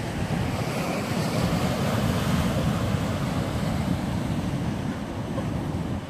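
Ocean surf breaking on a rocky shore, a steady rushing wash that swells and eases, with wind buffeting the microphone.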